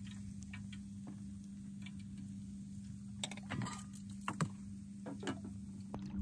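Light clicks and rustles of a plate of food on paper and a knife being handled and set down in a small boat, with a few louder knocks and rustles between about three and five seconds in, over a steady low hum.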